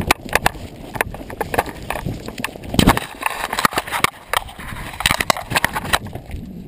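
Nylon parachute canopy fabric rustling and crinkling close to the microphone in many irregular snaps as the collapsed canopy is handled after landing.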